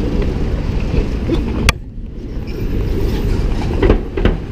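City street traffic noise picked up on a moving camera: a steady low rumble of passing cars. A sharp click and a brief drop in level come a little under two seconds in.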